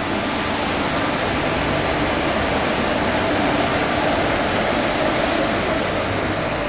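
WAP-4 electric locomotive hauling an express train out of the station, passing close by: a loud, steady rumble and hum of the locomotive with wheels running on the rails, its leading coaches following behind it.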